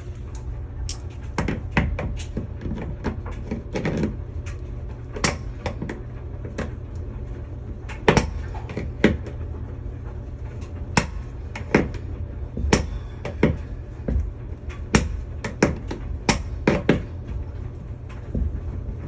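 Needle-nose pliers gripping and working flathead screws and their anchors out of a wall: irregular sharp clicks and clacks of metal on metal and plastic, a few dozen over the stretch, with a steady low hum underneath.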